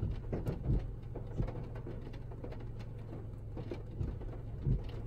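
Rain pattering on a car heard from inside the cabin, with a steady low hum and a few soft thumps.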